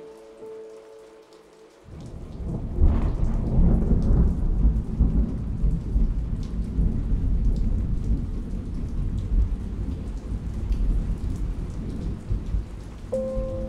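Rain and thunder, a steady downpour with a deep rolling rumble that comes in abruptly about two seconds in, swells about a second later and then runs on evenly, with small raindrop ticks over it.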